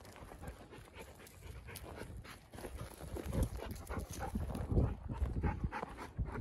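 A dog panting close to the microphone in quick breaths, louder in the second half.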